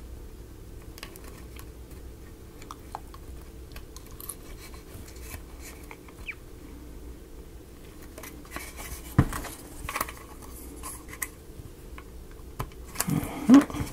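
Light clicks, taps and scraping of thin wooden model-kit pieces being handled and pressed into place, with a few sharper knocks about two-thirds of the way in, over a faint steady hum.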